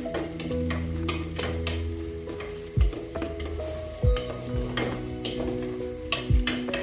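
Wooden spoon stirring and scraping beef and tomatoes frying in an aluminium pressure cooker, with a steady sizzle and a few dull knocks against the pot. Soft background music with held notes plays underneath.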